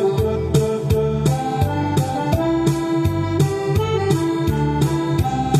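Instrumental break of a recorded backing track for a Taiwanese pop ballad, with a sustained melody line over a steady beat and no singing.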